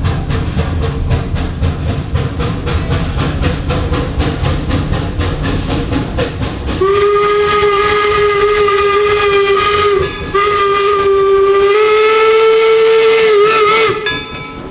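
4-4-0 steam locomotive York #17 working steam, its exhaust chuffing about four times a second over a low rumble. About seven seconds in its steam whistle blows a long blast, breaks briefly about three seconds later, then sounds again, a little higher in pitch in its last part, until near the end.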